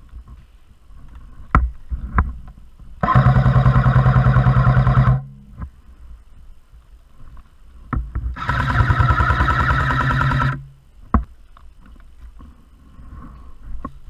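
A&K PKM electric airsoft machine gun firing two long full-auto bursts of about two seconds each, its gearbox cycling rapidly under a steady motor whine. A few short sharp clicks come between the bursts.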